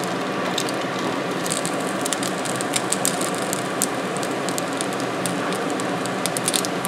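Pierogi pan-frying in hot olive oil: a steady sizzle with frequent small crackling pops as they crisp and brown.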